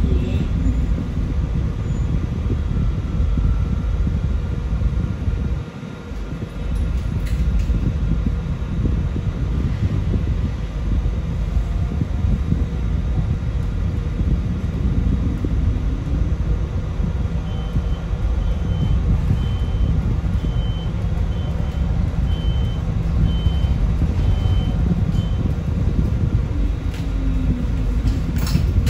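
Sunwin SWB6127EV electric bus on the move: a steady low road and drive rumble, with the electric motor's faint whine gliding up and down in pitch. A run of short, high beeps repeats for about eight seconds past the middle.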